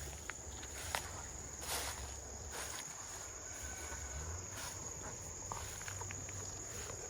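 Steady high-pitched insect drone, with scattered faint clicks and footsteps.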